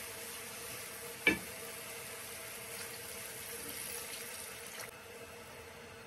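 Red lentils sizzling in a hot frying pan as they are stirred with a wooden spatula, with one sharp knock about a second in. Water is then poured into the pan, and the sizzling drops away near the end.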